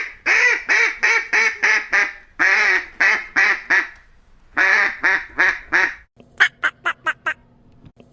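Duck quacking in runs of loud, evenly spaced quacks, three or four a second with short pauses between runs. Near the end comes a run of five shorter, sharper quacks over a faint steady hum.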